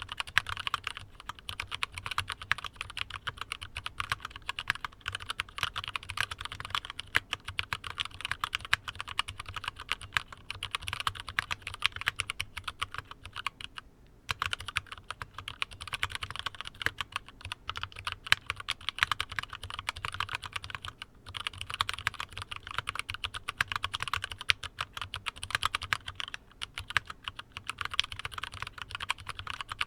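Continuous typing on a Drop Alt High Profile mechanical keyboard with stock, unlubed Gateron Milky Black linear switches, ePBT keycaps and foam under the PCB: a dense run of key clacks with a couple of brief pauses along the way.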